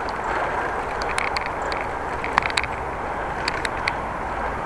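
Riding noise of a bicycle on the move: a steady rush of tyres on the road and passing air, with scattered sharp clicks and rattles.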